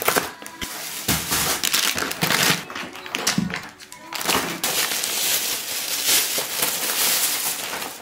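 Plastic and paper grocery bags rustling and crinkling as groceries are unpacked by hand.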